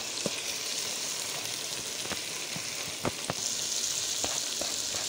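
Onions and tomatoes frying in oil in a pot: a steady sizzle, with a few short sharp clicks and crackles scattered through it. The sizzle grows a little brighter about three and a half seconds in.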